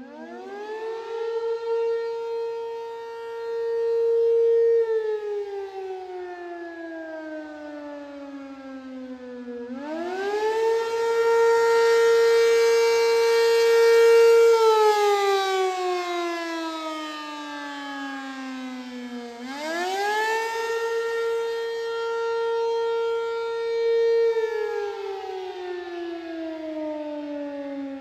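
ACA P-15 outdoor fire siren sounding its test signal, wailing up and down. About every ten seconds its tone climbs steeply in about a second, holds high for four to five seconds, then sinks slowly before climbing again, three times over. Its loudness swells and fades as it goes.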